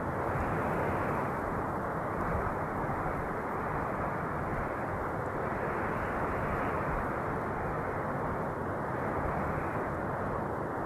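Steady wind noise, a dense rushing hiss that swells and eases slowly every few seconds.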